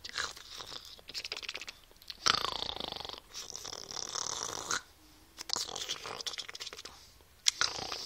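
Pit bull mouthing and gnawing at a person's hand, making wet chewing and clicking sounds, with breathy noises in between; the loudest comes about two seconds in.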